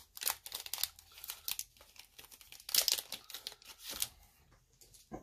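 Foil wrapper of a Dragon Ball Super Card Game booster pack being torn open and crinkled by hand, in irregular crackling bursts that are loudest about three seconds in and die down near the end.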